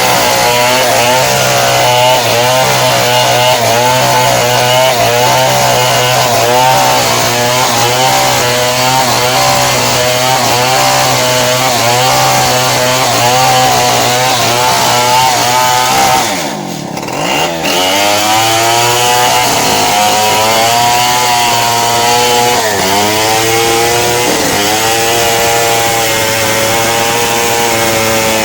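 Stihl two-stroke chainsaw running at full throttle, ripping lengthwise through a log to cut beams and planks, its engine note wavering steadily under load. About two-thirds of the way through, it drops sharply to a low note for a moment and then revs back up into the cut.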